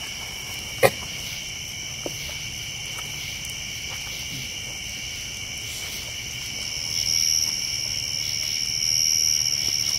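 Night chorus of crickets and other insects: a steady high-pitched trilling in several layers, growing louder after about seven seconds. One sharp pop sounds about a second in.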